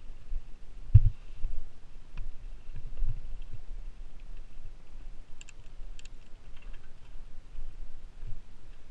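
Mountain bike rolling down a rocky, rooty dirt trail: a steady low rumble of tyres on dirt, with knocks and rattles as the bike goes over rocks and roots. The loudest knock comes about a second in, and a few sharp clicks come a little past the middle.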